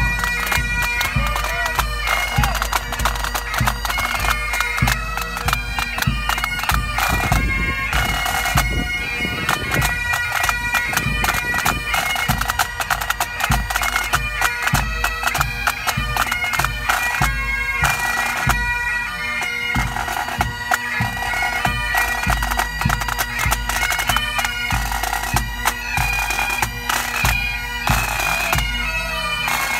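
Pipe band playing: Great Highland bagpipes sounding a tune over their steady drone, with rapid drum strokes and bass drum beats throughout.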